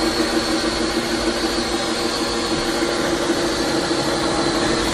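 Cordless drill motor running at a steady speed, drilling pilot holes through the van's sheet-metal roof.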